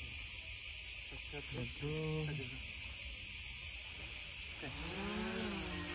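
Steady high chirring of an insect chorus throughout. A short hum about two seconds in, then from about four and a half seconds a small quadcopter drone's motors spin up as it lifts off from a hand, a buzzing hum that rises and wavers in pitch.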